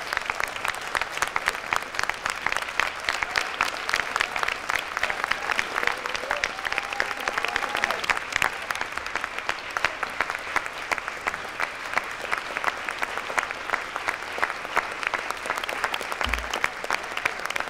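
Audience applauding: a large crowd clapping steadily, many hands at once.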